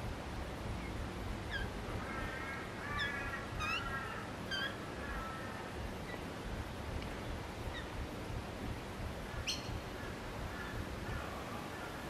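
Birds calling: several short, sharp downward chirps, and between about two and five seconds in a longer, layered call. A low, steady background rumble runs underneath.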